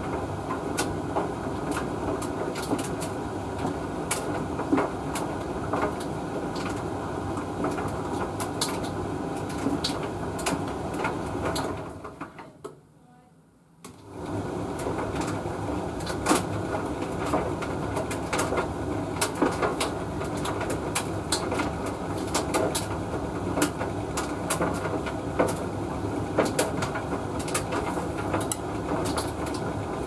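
Hoover VTV581NC vented tumble dryer running, its drum tumbling a load of clothes with frequent clicks and knocks of the load against the drum. About twelve seconds in, the running dies away almost to silence for about two seconds, then starts again abruptly.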